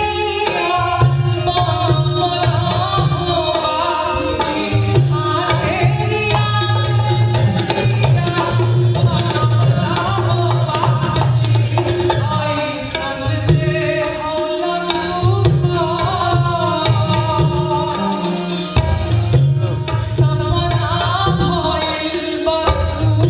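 A woman singing live with a melodic, wavering voice, accompanied by drums and other percussion.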